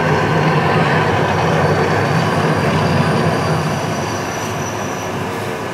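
Mirage volcano eruption show: a loud, steady rumbling roar that starts to fade about three seconds in as the eruption dies down.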